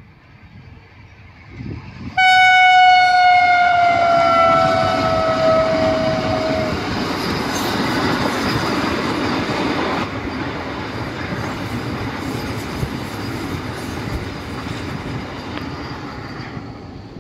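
Vande Bharat Express electric trainset passing close at speed. About two seconds in, a long horn blast starts suddenly, loud, its pitch sliding down as the train goes by. This is followed by the steady rushing noise of the coaches' wheels on the rails, easing off near the end.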